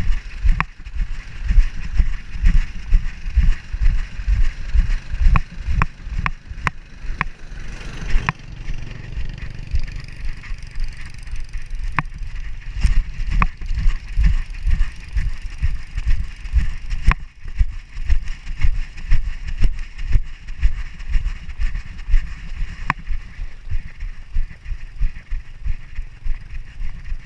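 Action camera strapped to a moving dog, jostled with every step: rapid, uneven low thumps and rattles of the camera and its mount, with sharp clicks and wind on the microphone.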